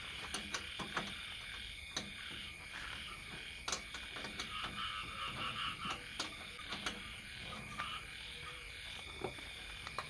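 Steady chorus of night insects and frogs, with scattered sharp metallic clicks and taps from a small spanner working a bolt on a metal bar clamp.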